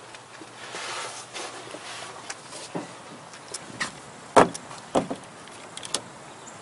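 Clunks and latch clicks from the armored rear liftgate of a Toyota Land Cruiser 200 being handled by its pull handle, after a shuffling rustle about a second in. The loudest knock comes about four seconds in, followed by two lighter ones.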